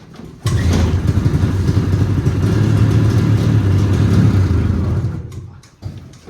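Snowmobile engine, just drained after being sunk in a pond, starting up about half a second in and running for about four and a half seconds before dying away; it fires again right at the end.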